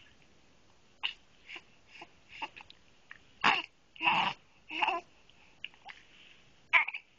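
A baby hiccupping: a string of short, sudden hiccups at uneven intervals, the loudest few in the middle each carrying a brief voiced squeak.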